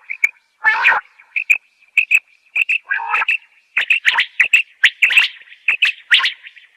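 Common quail calling: runs of short, high chirping notes, several a second, mixed with a few fuller, harsher calls.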